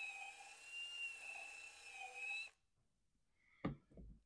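Cordless drill spinning a brass wire brush inside a Kohler Command engine's cylinder head, scrubbing out buildup: a steady high motor whine that wavers slightly with load and cuts off suddenly about two and a half seconds in. Two short knocks follow near the end, the first the loudest sound.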